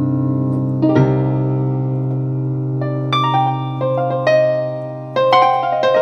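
Korg M1 synthesizer playing an electric-piano-like program: held chords with a melody on top, fresh notes struck about a second in and several more in the second half.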